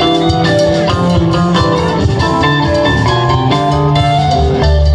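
Live rock band playing an instrumental passage through a PA, heard from the crowd: a run of guitar notes over a steady bass line and drums.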